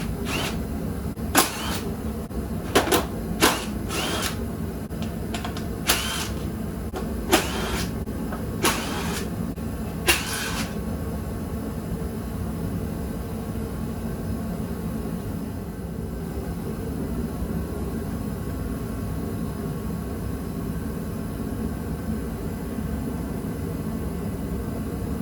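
Sharp clinks and knocks of tools and parts being handled while a dirt bike is taken apart, about nine of them in the first ten seconds, over a steady low hum that then carries on alone.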